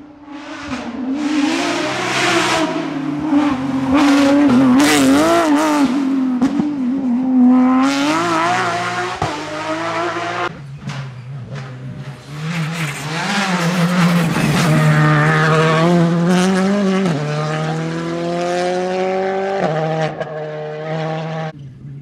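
Rally cars passing at speed on a tarmac stage, engines held at high revs with the pitch climbing and stepping down through gear changes. Two separate passes, each cut off abruptly.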